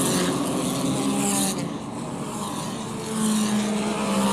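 Racing car engines on broadcast track audio, running at speed, with an abrupt change in the sound about a second and a half in.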